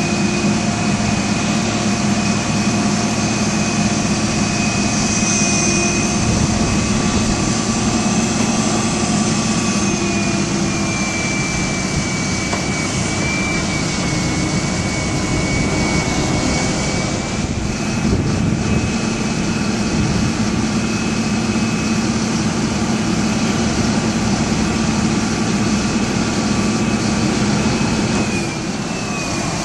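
A Ford 6.8L Triton V10 truck engine runs steadily under load from the hydraulic pump, with a steady high whine as the Altec TA37M boom is raised and extended. The whine dips slightly in pitch a couple of times, the last time near the end as the sound eases off a little.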